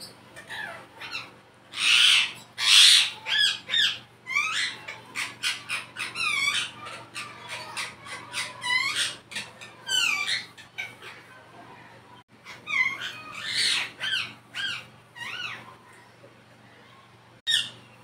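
Indian ringneck parakeet calling: a long run of short chirps and squawks that rise and fall in pitch, with a couple of loud harsh squawks about two to three seconds in. The calls die away near the end, apart from one sharp call just before it.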